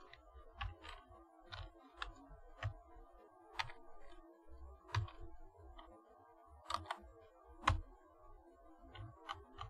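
Typing on a computer keyboard: irregular single keystrokes with gaps between them, a few struck harder than the rest.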